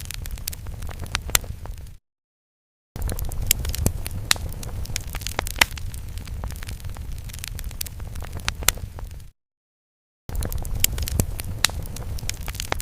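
Fire sound effect: a low rumble of flames with sharp crackles and pops throughout. It cuts to dead silence for about a second twice, about two seconds in and again about nine seconds in, where the loop restarts.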